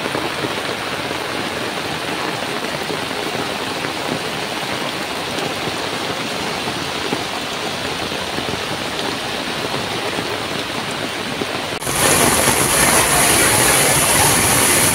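Steady hiss of heavy rain falling on a flooded street. About twelve seconds in it suddenly becomes louder and brighter.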